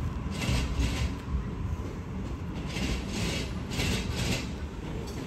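Electric passenger train rumbling on the rails out of sight, with irregular bursts of rasping hiss every second or so.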